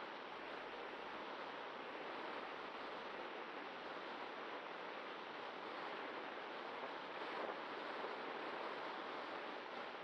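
Steady rushing airflow over a Cularis RC glider's onboard camera microphone in flight, with a faint steady hum underneath.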